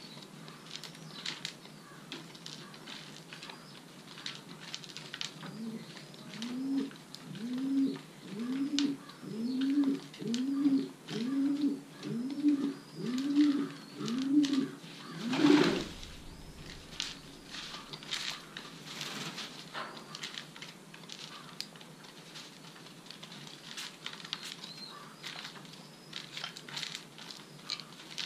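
Racing pigeon cooing: a steady series of about ten coos, each rising then falling, a little under one a second, ending with a loud thump. Scattered light clicks and scratches run throughout.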